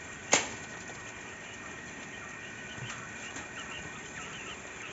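Caged Japanese quail chirping softly in short, scattered calls, with one sharp click about a third of a second in.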